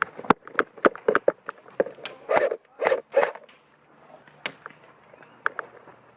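Quick running footsteps, about three a second, with three louder rustling scrapes of clothing or gear about two to three seconds in, then only a few scattered steps.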